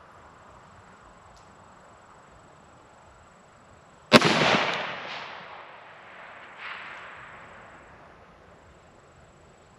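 A single shot from a Ruger SFAR .308 semi-automatic rifle fitted with an aftermarket muzzle brake, about four seconds in, followed by an echo that rolls back and dies away over several seconds, with a second swell of echo about two and a half seconds after the shot.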